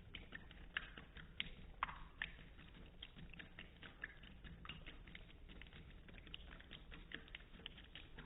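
Cat lapping water with its tongue: a run of quick, soft wet clicks, several a second.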